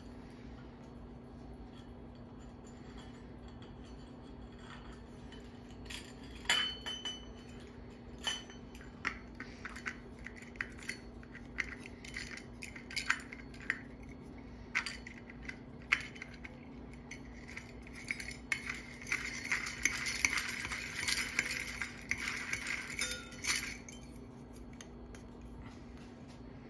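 Light metal clinks and rattles from handling a ceiling fan light kit's metal switch housing cap and its wiring. Scattered taps and clicks start about six seconds in, and a denser jangling run comes near the end.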